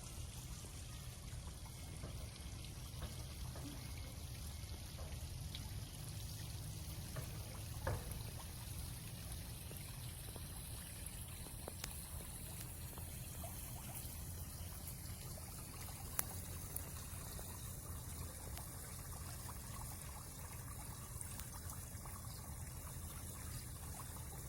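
Steady running water, pouring and trickling without letting up.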